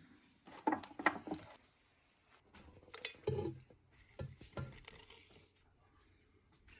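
Small knocks, clicks and rustling from things being handled by hand, in three short bursts with quiet gaps between.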